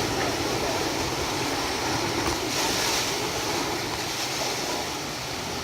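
Steady rush of water driving a water-powered sawmill, with the mill's machinery running through a cut.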